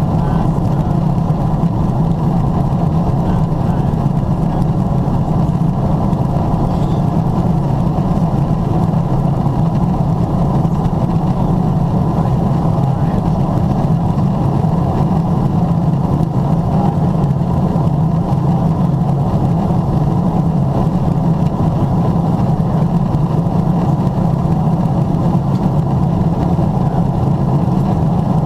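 Steady airliner cabin noise beside the window of a Boeing 777-300ER in descent: an even rush of airflow and engine drone with a strong low hum, unchanging throughout.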